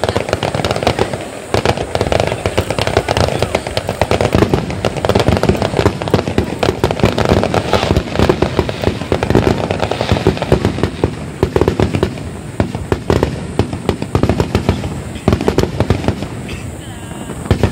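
Aerial fireworks bursting in a rapid run of bangs and crackles, easing for a few seconds past the middle and picking up again near the end.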